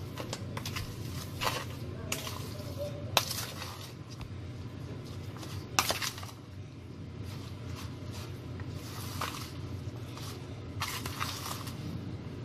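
A metal spoon stirring and folding mayonnaise-dressed coleslaw in a plastic tub: soft scraping with a few sharp clicks of the spoon against the tub, the loudest about three and six seconds in, over a low steady hum.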